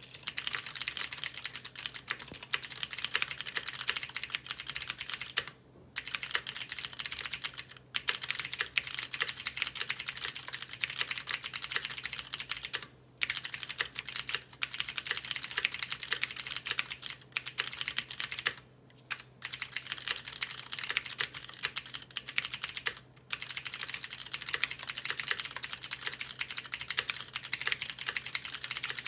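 Typing on a Cherry MX Board 3.0S mechanical keyboard with clicky Cherry MX Blue switches: fast, steady runs of sharp key clicks, broken by a few short pauses.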